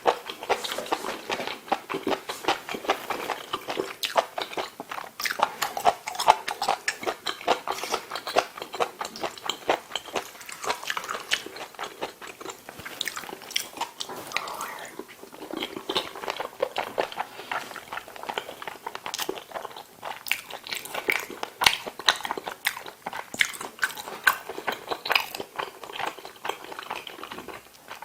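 A person eating close to the microphone: rapid wet chewing with many sharp mouth clicks and smacks, going on continuously.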